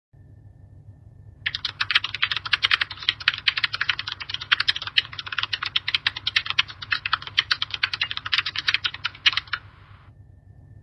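Computer keyboard typing: rapid, dense key clicks that start about a second and a half in and stop about a second before the end, over a faint low hum.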